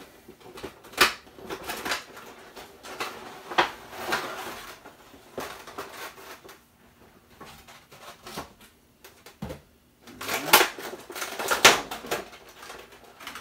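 A Funko Pop figure's cardboard box and clear plastic tray being handled as the figure is taken out: scattered clicks, taps and plastic rustling, busiest toward the end.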